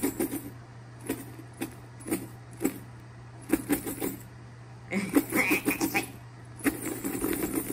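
Small monogram backpack being handled and shaken, with irregular clicks and light metallic jingles from its hardware and contents.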